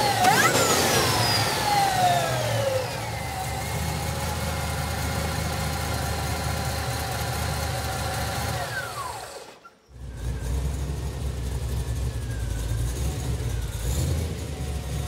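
Supercharged LS3 V8 with a full performance exhaust blipped once, its revs falling back over a couple of seconds, then idling steadily. The sound drops out briefly about ten seconds in before the idle resumes.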